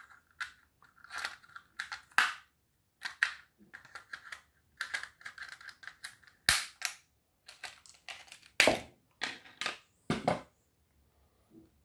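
Irregular clicks, snaps and cracks of a Noark fuse disconnector's plastic housing being pried apart with pliers and a screwdriver, the metal tools knocking against the plastic. The sharpest snaps come in the second half.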